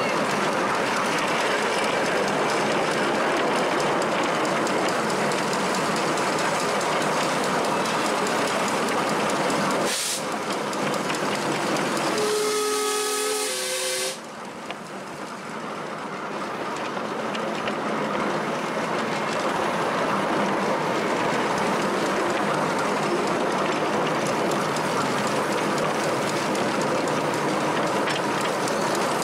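Miniature ride-on steam train running, heard from a passenger car behind the locomotive: a steady rumble and clatter of wheels on the track. About twelve seconds in, the locomotive's steam whistle blows for about two seconds, several notes sounding together over a hiss of steam.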